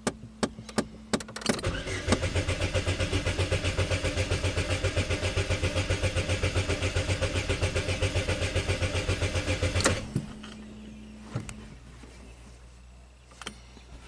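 Starter motor cranking a 2.2L Ecotec four-cylinder without it firing, for about eight seconds, in an even fast rhythm of compression strokes. This is a wide-open-throttle cranking compression test on cylinder 4, which is sealing slightly poorly at its valves. The cranking starts about a second and a half in and cuts off abruptly near ten seconds in.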